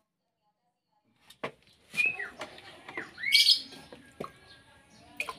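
Plastic dipper knocking against a plastic basin and scooping coconut water, with a few sharp knocks and short squeaky chirps, one falling and one rising, about two and three seconds in.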